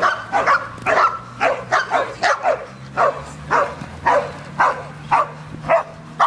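A dog barking over and over, about two barks a second, over a low steady hum.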